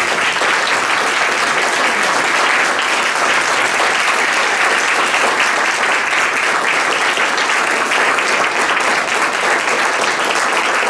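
Audience applauding, a steady, dense clapping that keeps up without a break.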